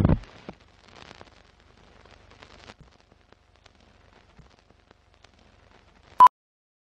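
Film-leader countdown sound effect: a short loud thump at the very start, then faint crackle and scattered clicks like old film running through a projector. A little over six seconds in comes a single very short beep near 1 kHz, the classic "2-pop" sync beep of a countdown leader.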